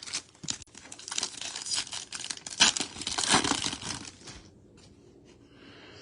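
Garbage Pail Kids trading-card pack wrapper being torn open and crinkled by hand: a dense run of crackling that stops about four seconds in.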